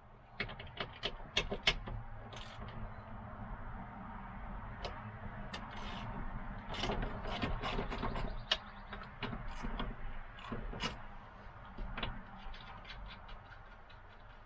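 Ratchet and socket clicking in irregular runs, with small metal knocks, as the 10 mm nuts holding a truck door mirror are loosened, over a low steady hum.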